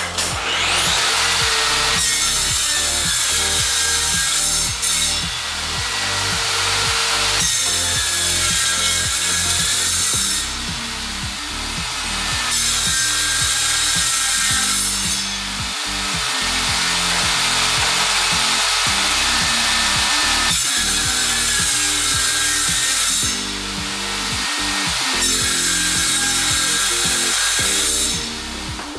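Table saw running and crosscutting a glued-up hardwood panel into strips, with several louder cuts of a couple of seconds each, about five seconds apart. Background music with a steady beat underneath.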